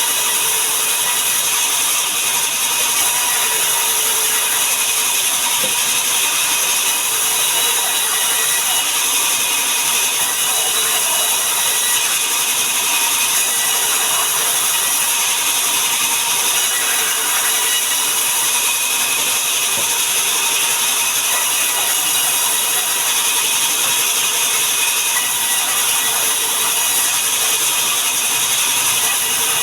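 Sawmill machinery running steadily while processing sengon wood into boards, a loud, even mechanical noise with no breaks.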